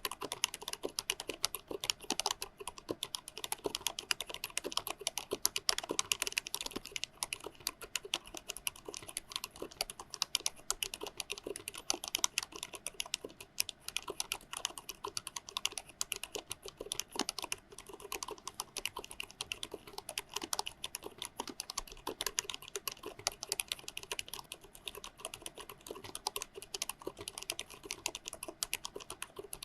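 Continuous fast typing on a COX CK01SL mechanical keyboard, with PBT keycaps over 45 gf low-noise white switches: a dense, unbroken stream of keystroke clicks.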